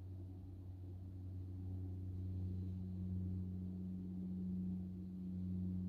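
A steady low droning hum from the sky, made of two held low pitches, growing a little louder over the first couple of seconds.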